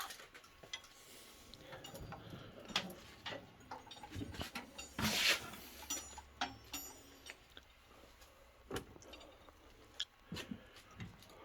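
Scattered light clicks and taps from a metal tool cart being handled, with a brief scraping rush about five seconds in.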